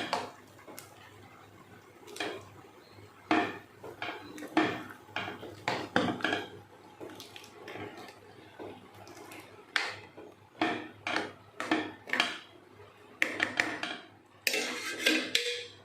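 A spoon stirring and scraping in a cooking pot of gourd, rice and jaggery payasa while the jaggery melts, with irregular clinks and scrapes against the pot, busier near the end.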